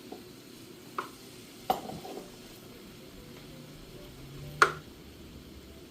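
Kitchen cookware clatter: three sharp knocks of a utensil or cup against a pan, the loudest near the end, over a faint steady hiss.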